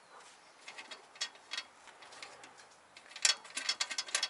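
Light metallic clicks and ticks as the chrome headlight trim ring on a VW bus and its retaining screw are worked loose by hand. A few scattered clicks at first, then a quicker cluster from about three seconds in.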